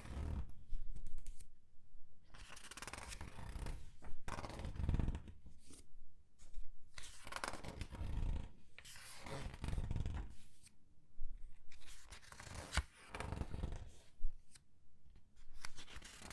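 Comic book paper pages being turned one after another and squeezed, giving a rustling swish about every two seconds with sharp crinkles.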